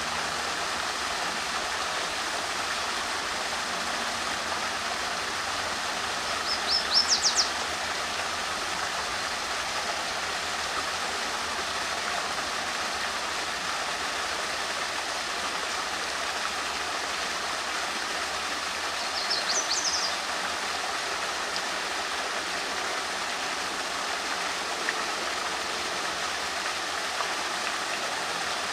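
Steady rush of flowing stream water. A small songbird breaks in twice with a short burst of high, quick notes, about a quarter of the way in and again about two-thirds through.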